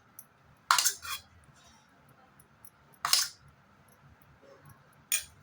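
Spoon clinking and scraping against a bowl or plate while samosa filling is scooped, a handful of short sharp clinks: a cluster about a second in, one around the middle and one near the end.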